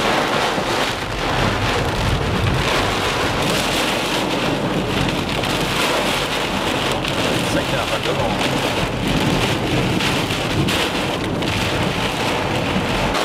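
Torrential rain pelting a car's windscreen and roof, heard from inside the cabin: a dense, steady hiss with no let-up.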